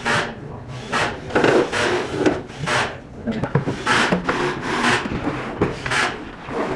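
Screws being driven by hand into the sheet-metal front panel of a power module: a string of short scraping, rasping strokes at irregular spacing, roughly one a second.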